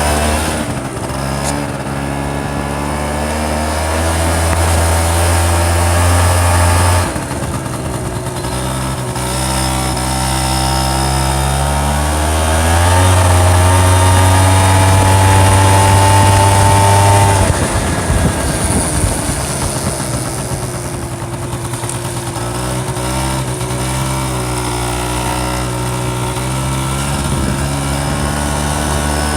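Honda scooter engine running under way, speeding up with a rising pitch about halfway through, holding, then easing off with a sudden drop before picking up again near the end.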